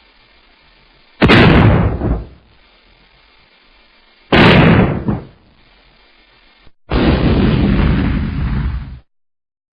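Explosion sound effects: two single blasts about three seconds apart, each with a sharp start that dies away over about a second. Then a longer blast effect, a steady rumble of noise lasting about two seconds that cuts off suddenly.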